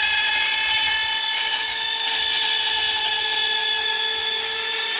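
RotoZip spiral saw running at high speed while cutting, a steady high-pitched whine with its pitch sagging slightly near the end.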